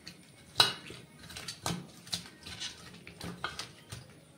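Pieces of raw fish being mixed by hand in a stainless steel bowl, with several sharp clinks against the metal bowl, the loudest about half a second in.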